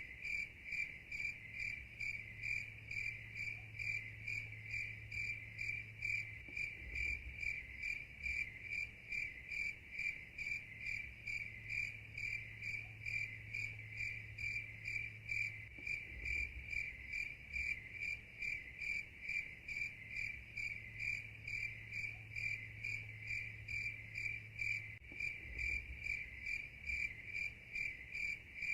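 Steady insect chirping: a high, even trill pulsing about two to three times a second, with a faint low hum that comes and goes every few seconds.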